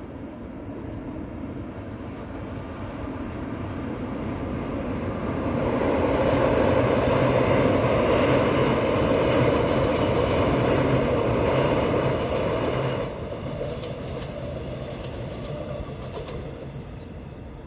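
Mugunghwa-ho passenger train passing close by. Its rumble builds, is loudest about six seconds in, drops sharply near thirteen seconds, then fades away.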